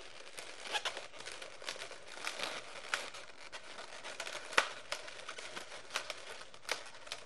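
Inflated latex 260 modelling balloons being handled and twisted together: continuous rubbing and crinkling of latex with many sharp ticks scattered throughout, the loudest a little past halfway.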